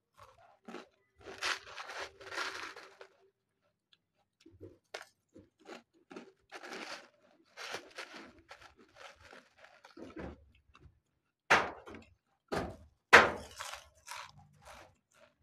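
Lay's potato chips being bitten and chewed, crunching in irregular bursts, with a few louder sharp cracks near the end.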